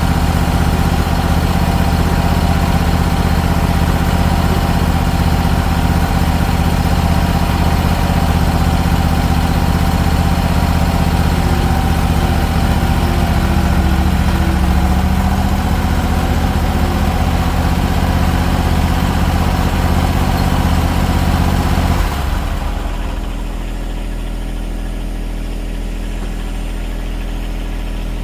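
Lawn mower engine running steadily, then dropping about three-quarters of the way through to a quieter, lower idle that keeps running.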